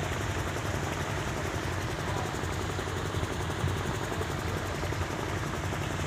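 Boat engine running with a steady low rumble.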